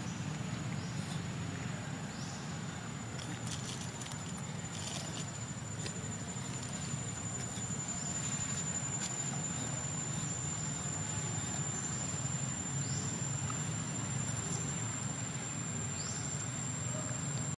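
Outdoor woodland ambience: an insect holds one steady, high-pitched, unbroken note over a low steady rumble, with a few faint clicks and short rising chirps.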